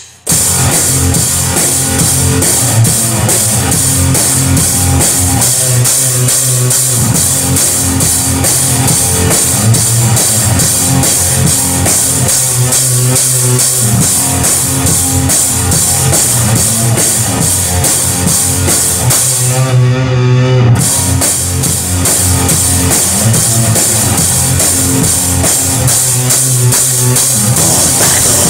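Raw black metal band playing an instrumental passage: drum kit with a constant cymbal wash over distorted guitar and bass. The cymbals break off for about a second about two-thirds of the way through.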